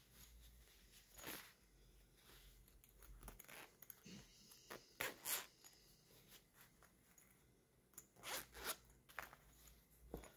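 Zipper on a cotton fabric purse being pulled open and closed in several short zips.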